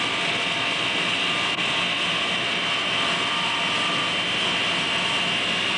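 A 3/4 hp electric induction motor running on mains power and belt-driving a 2900-watt generator head, a steady machine hum with a high-pitched whine over it.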